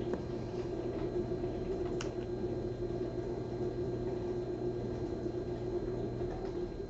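Steady low machine hum, with a faint click about two seconds in.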